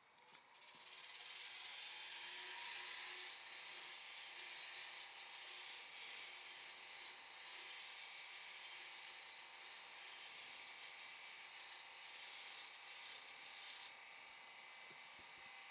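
Gouge cutting a spinning wooden blank on a wood lathe to bring it round: a steady scraping noise that starts about a second in, over a faint rising lathe-motor whine, and cuts off near the end.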